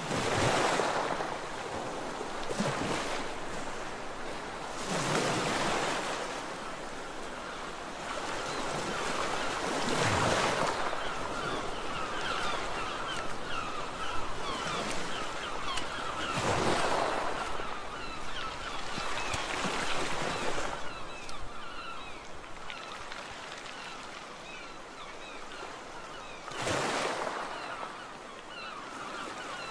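Sea waves breaking on a beach: a steady wash of surf with a louder surge as a wave breaks every few seconds, about six in all.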